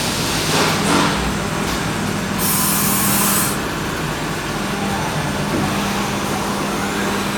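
Citizen Cincom K16 CNC sliding head lathe running with a steady hum, and a loud hiss of air or spray about two and a half seconds in that lasts about a second.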